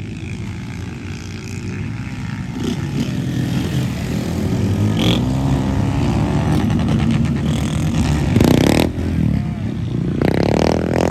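Several motorcycle engines revving as the bikes ride up the road and pass, growing louder over the first few seconds. There is a loud burst of revving about eight seconds in and another near the end.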